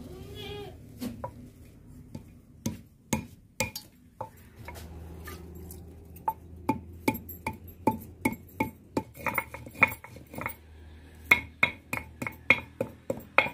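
Stone roller knocking and scraping on a flat stone grinding slab (sil-batta) as wet turmeric is ground into paste. Sharp clacks come unevenly at first, then settle to about two or three a second and grow louder in the second half.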